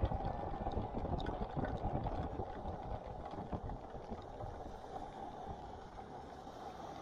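Motorcycle riding on a rain-soaked road: wind buffeting the microphone over the engine and the wet hiss of tyres on standing water. The noise eases a little after about three seconds as the bike slows.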